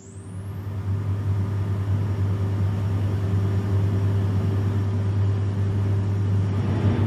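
Room-tone ambience: a steady low rumble with a faint constant hum, swelling up over the first second.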